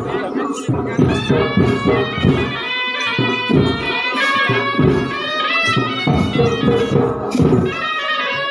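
Shehnai-like reed pipe playing a wavering melody over a steady beat of drums: the live music that accompanies a Chhau dance.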